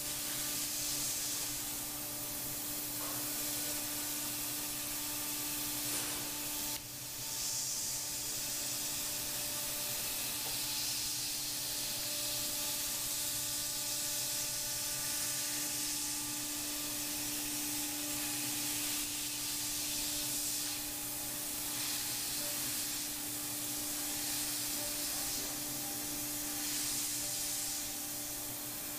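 Thermwood 5-axis CNC router spindle running with a steady whine while a 1/8-inch high-speed cutter routes holes in polyethylene, under a constant hiss of compressed air blown on the tool to keep melted plastic from building up on the cutter. The sound dips briefly about seven seconds in.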